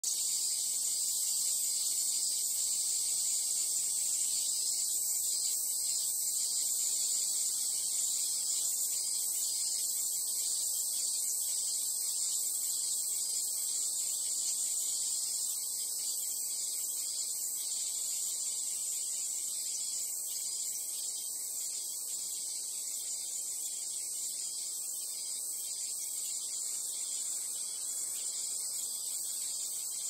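Cicadas singing: one continuous high-pitched buzz, a little softer from about halfway through.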